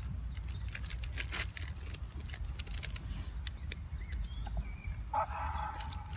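Steady low wind rumble on the microphone with scattered sharp ticks, and a dog giving a short pitched cry about five seconds in.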